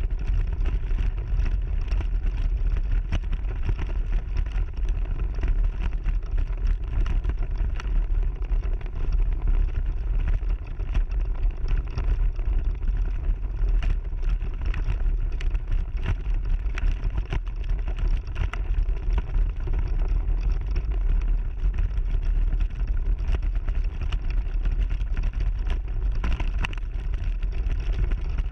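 Ride noise of an AC Mayan off-road mobility scooter on a rough gravel track, picked up by a camera on the scooter: a steady low rumble with frequent clicks and rattles from the bumps.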